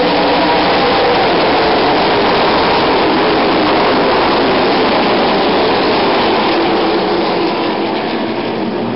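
A field of ARCA V8 stock cars racing on a dirt oval, many engines together in one loud, dense roar that eases off slightly near the end as the pack heads away into the turn.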